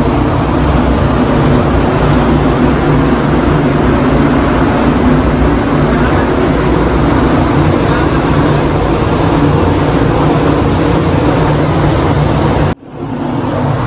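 Paint spray booth's ventilation fans running, a loud steady rush of air that cuts off suddenly near the end.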